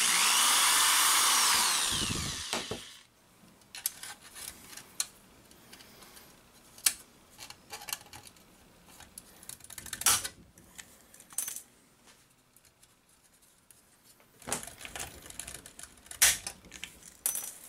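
Power drill boring through a small brass crimp terminal, its whine falling as the motor slows and stops about three seconds in. Then scattered sharp clicks and snaps of hand work on the sheet-metal case, the loudest late on, fitting a hand pop-rivet tool setting rivets.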